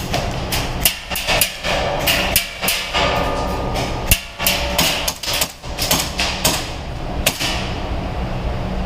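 Airsoft electric gun fire: a string of sharp, cracking shots at irregular spacing, some in quick pairs, over a steady low background rumble.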